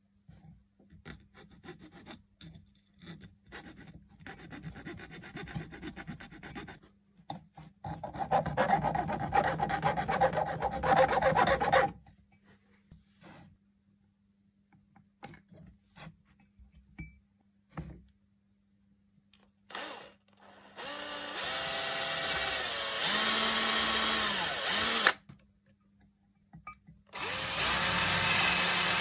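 A small electric power tool runs in several bursts during metalworking, its motor whine steady at speed and bending in pitch as it spins up and slows. Light clicks and knocks from handling parts come between the bursts.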